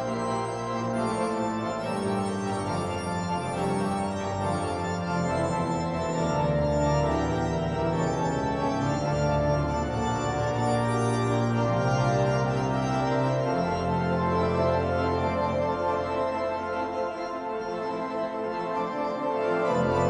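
Organ played with hands and feet: full sustained chords over deep pedal bass notes, each held for a few seconds before moving to the next.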